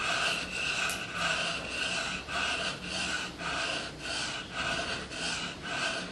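Steel chisel blade rubbed back and forth on a sharpening stone, an even rasping scrape in quick strokes, about three a second.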